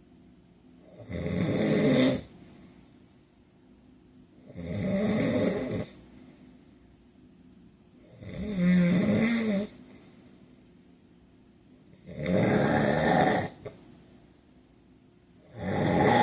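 A sleeping man snoring loudly in a steady rhythm: five rough snores, each lasting about a second, coming roughly every three and a half seconds, with quiet pauses between them.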